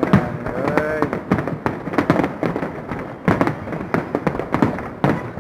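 Fireworks display: a rapid, irregular string of bangs and crackles from shells bursting overhead.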